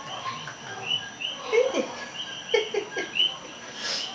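Small animals chirping: short high calls repeating about twice a second, with a few brief low voice sounds midway.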